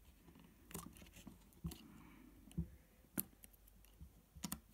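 Small clicks and taps of fingertips pressing the replacement Lightning connector assembly and surrounding parts into place inside an opened iPhone 6. About half a dozen scattered clicks, with a quick pair near the end.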